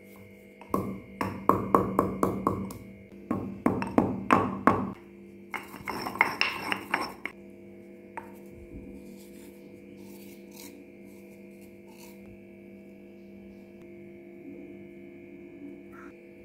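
Stone pestle pounding seeds in a granite mortar: two quick runs of knocks, then a couple of seconds of rough grinding, stopping a little past the middle. A faint steady hum remains after that.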